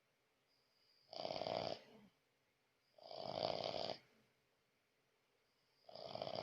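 French bulldog snoring in sleep: three snores, about one every two and a half seconds, each led in by a thin high whistle, the last starting near the end.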